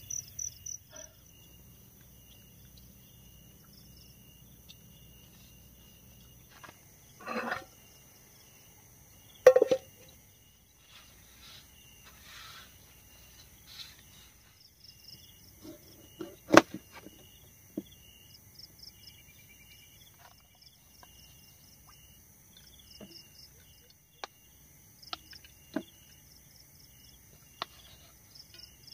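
Insects chirping in a steady, pulsing chorus, with scattered sharp knocks and short rustles of things being handled close by; the loudest knocks come about a third of the way in and just past halfway.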